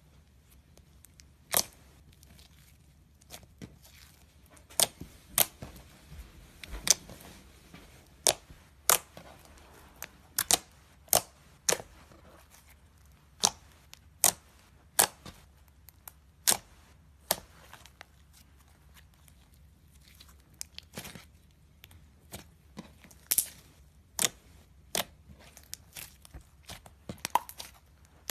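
Fingers pressing, squeezing and folding thick slime, giving sharp popping clicks as trapped air pockets burst. The clicks come at irregular intervals, roughly one a second, with a quieter stretch about two-thirds of the way through.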